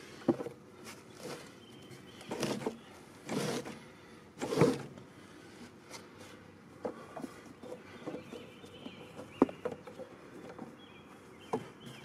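Metal 44-inch mower deck being worked out by hand from under a Cub Cadet garden tractor, dragging over grass. Three short scrapes come in the first few seconds, followed by scattered sharp metal knocks and clicks.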